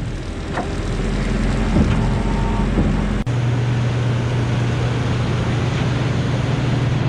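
Farm machinery engine running steadily. About three seconds in the sound changes abruptly to a different, steadier hum.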